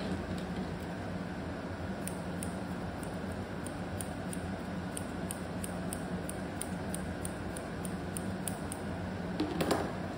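Thinning shears snipping through a dog's beard fur, a steady run of about three snips a second starting about two seconds in, over a steady low hum.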